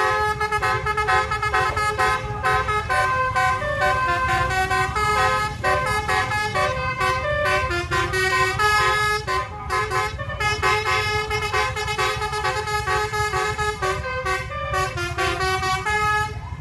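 Multi-tone 'telolet basuri' bus air horn playing a melody, its notes stepping up and down continuously, over a steady low rumble.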